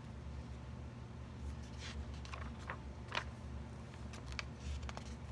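Journal pages being turned by hand: a few soft paper rustles and faint ticks over a steady low hum.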